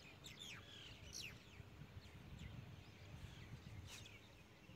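Faint birds chirping in short, falling calls, scattered through, the clearest about a second in and near the end, over a low rumble.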